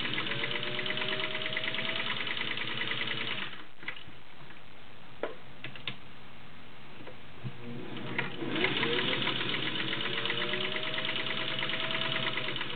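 Singer 301A straight-stitch sewing machine running fast, stitching through several folded layers of cotton, its motor pitch climbing as it speeds up. It stops about three and a half seconds in, a few light clicks follow, and it starts sewing again about eight and a half seconds in.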